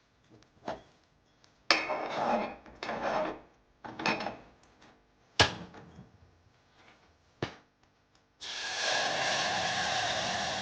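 Household handling noises: a few sharp knocks and short scraping, rubbing sounds, then about eight seconds in a steady rushing hiss starts suddenly and keeps going.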